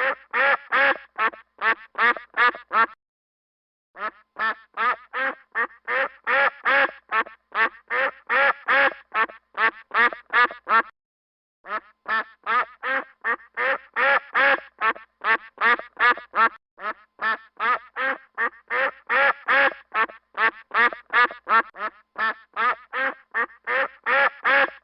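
A duck quacking in a rapid, even string of loud quacks, about three or four a second, that cuts off completely twice for about a second before resuming.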